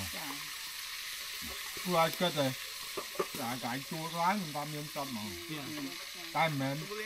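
People talking, over a steady hiss of food frying on a camp stove.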